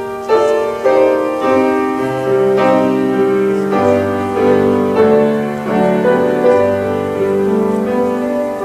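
Piano playing a slow, gentle processional piece for the bride's walk up the aisle, melody notes changing about every half second over held bass notes.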